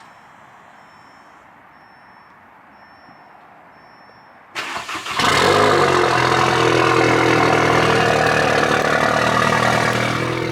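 A 2015 Audi A3's 2.0-litre turbocharged four-cylinder cranks briefly on the starter about four and a half seconds in, then catches and runs at a loud fast idle through a newly fitted CTS Turbo downpipe, easing down a little near the end. The idle sits high, around 1,200 to 1,500 rpm, which the owner puts down to the engine running untuned on the new downpipe.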